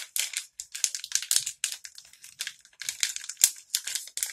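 Packaging of a set of makeup brushes crinkling in a quick, irregular run of short rustles as hands pull at it, the brushes stuck and not wanting to come out.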